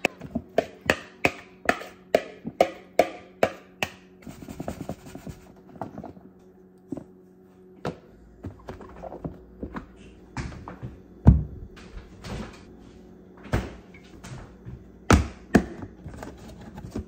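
Knife chopping on a cutting board: quick, even strokes about two a second at first, then slower and uneven, with a couple of heavier thuds.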